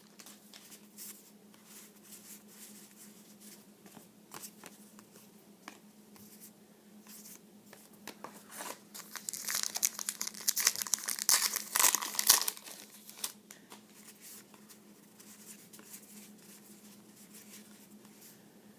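Trading card pack wrapper being torn open and crinkled, with small clicks of cards being handled; the crinkling is loudest for a few seconds past the middle.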